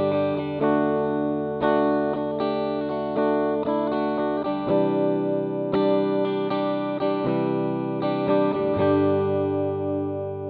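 Electric guitar played through the Playwell Tank-G multi-effects pedal on its preset 6A: a run of chords, changing every second or so, with the last chord left ringing and fading near the end.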